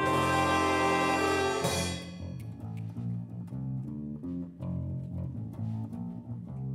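Jazz big band hits a loud held chord with the horns, cut off after about two seconds. Two electric bass guitars then play a bass line on their own, note after note.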